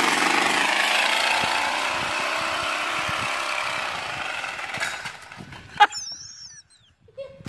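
Mercedes-AMG C63's V8 exhaust under hard acceleration as the car pulls away, the sound fading steadily over about five seconds. There is one sharp crack from the exhaust near the end.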